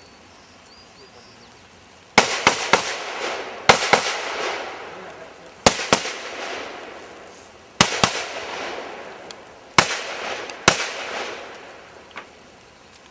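Rifle shots in a string of about eight, each followed by a long echoing tail. Three come in quick succession about two seconds in, then the rest are spaced roughly every one to two seconds. A faint pop comes near the end.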